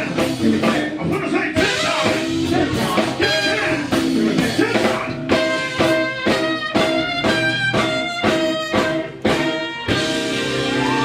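Live soul and R&B band playing with electric guitar, with a run of short, rhythmic chord hits in the second half that gives way to a held chord near the end.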